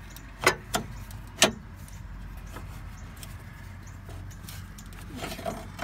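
Three sharp metal clicks in the first second and a half as a transmission dipstick tube is worked by hand around the exhaust header, followed by a low steady hum.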